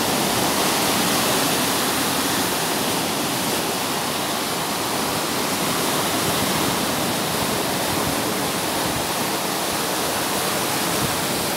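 Lake waves breaking and washing up over a flooded sand beach: a steady rushing sound.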